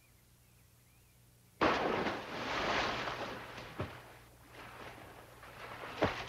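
A man diving into a swimming pool: a sudden big splash about one and a half seconds in, then continued splashing and churning water as he thrashes about, with another sharp splash near the end.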